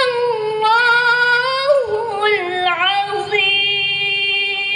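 A woman's high voice chanting the end of a Quran recitation (tilawah), drawing out one long ornamented note. About two seconds in the pitch steps down through quick wavering turns, then is held steady.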